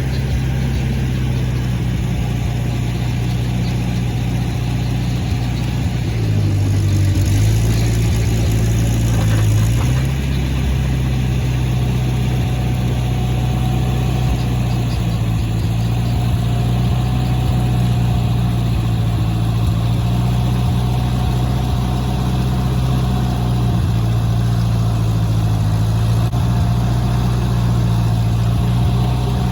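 An engine idling steadily, its pitch shifting briefly about seven to ten seconds in before settling back.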